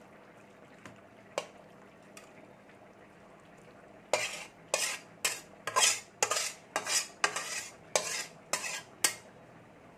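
Metal spatula scraping cooked vegetables out of a metal kadai into a steel bowl. A few light clicks come first, then a quick run of about ten short scrapes starting about four seconds in.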